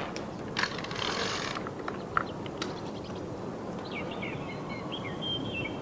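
A small bird twittering in short, wavering phrases from about four seconds in, over a steady background hiss. A brief rustle and a few light clicks come in the first two seconds.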